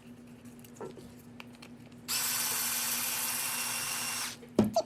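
A small cordless drill-driver runs in one steady whine for about two seconds, backing a screw out of the RC car chassis. A couple of sharp knocks follow near the end.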